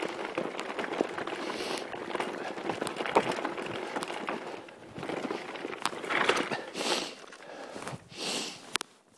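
Mountain bike rolling down a rocky dirt singletrack: tyres crunching over gravel and loose stones, with a run of rattling knocks from the bike. It is heard through a phone tucked inside a cycling jersey, and it eases off near the end.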